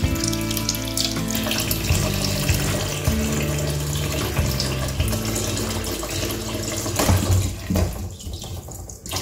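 Kitchen tap running into a stainless steel sink and a pot of cocoyam corms, the water splashing as hands rub and wash the corms.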